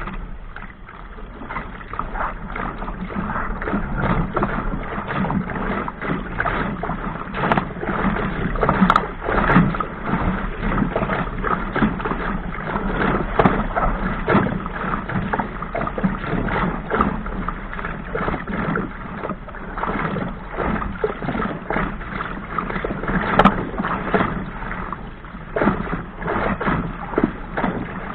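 Sailing dinghy's hull slapping and splashing through choppy waves, with irregular bursts of spray and water rushing along the hull.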